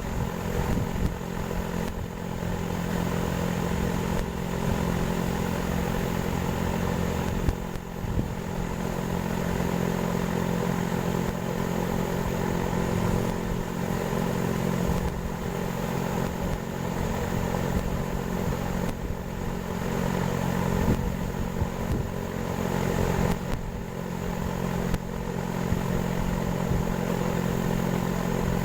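A motor running steadily with a constant hum, with a few short knocks over it.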